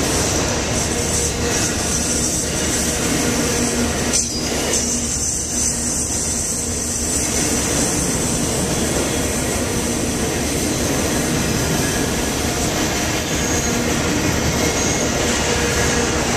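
Union Pacific freight train of autorack cars rolling past close by: a loud, steady rumble of steel wheels on rail that keeps on without a break.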